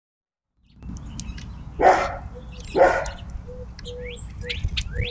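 A dog barks twice, about a second apart. Then a bird calls with quick rising chirps, about two a second, while a short low note repeats underneath, over a steady low rumble.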